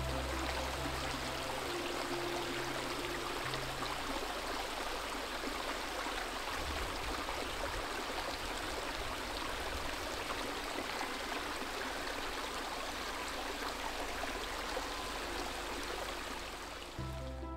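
Steady, even rush of running water over a rocky shore.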